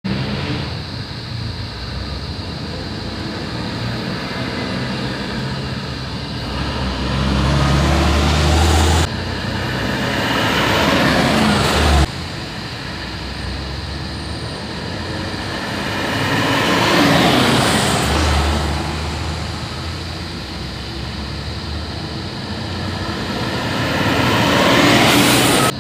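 IVECO Euromidi LE coach buses driving past one after another, the engine noise swelling as each comes close and fading as it goes by. The sound breaks off abruptly twice where the shots change.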